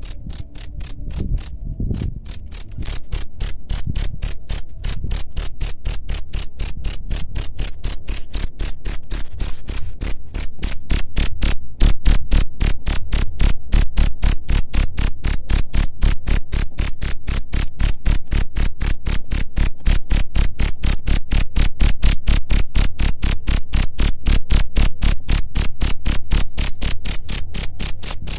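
Cricket chirping loudly: a high, single-pitched chirp repeated at a fast, even rhythm, a few chirps every second. It gets louder about three seconds in.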